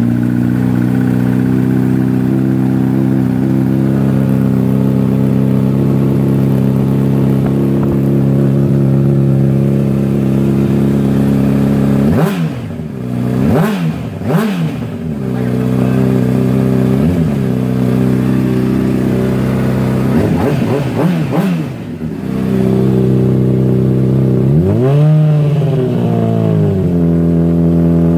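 2008 Honda CBR600RR's inline-four engine running through a Yoshimura RS-5 carbon-fibre slip-on exhaust: it idles steadily for about twelve seconds, then is blipped quickly several times and given one longer rev near the end before settling back to idle.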